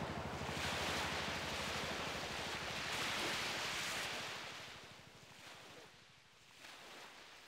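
Sea surf and wind: an even hiss that swells about a second in and fades away about five seconds in, over a low, fast, even throbbing.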